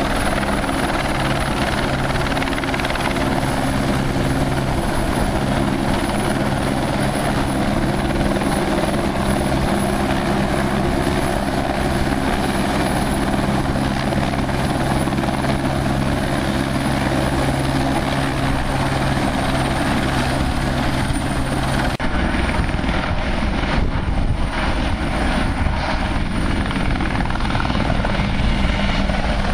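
Eurocopter AS350 Écureuil helicopter hovering close by, its turbine and rotor giving a loud, steady drone. About 22 seconds in the sound switches to a Eurocopter EC120 Colibri hovering, with a lower, rougher rotor rumble and uneven pulses.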